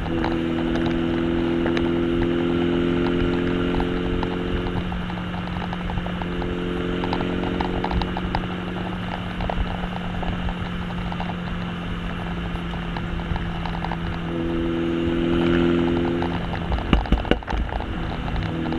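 Exhaust of a 2015 MINI Cooper Hardtop with a John Cooper Works exhaust, heard right at the twin tailpipes while driving: a steady engine drone whose tones fade out and come back several times, over road and wind noise. Near the end, a quick cluster of sharp pops.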